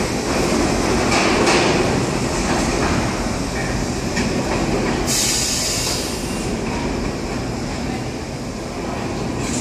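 New York City subway train rumbling along the rails in an underground station, with a brief high-pitched burst about five seconds in, like a wheel screech or a brake hiss.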